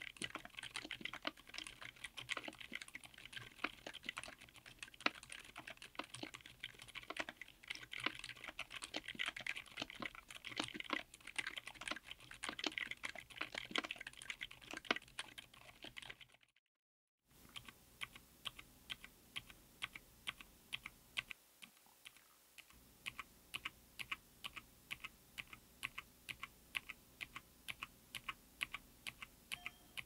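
Typing on a mechanical keyboard with Outemu Silent Yellow Jade silent tactile switches, ABS Cherry-profile keycaps, an FR4 plate and an aluminum case. The keystrokes come as a fast, irregular run, break off for under a second, then go on evenly at about two to three a second.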